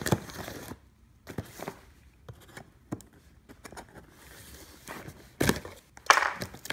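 A blade slitting and scraping along clear packing tape on a cardboard box, with the tape tearing and the cardboard rustling in short scratchy strokes. A couple of louder knocks and scrapes of the box being handled come near the end.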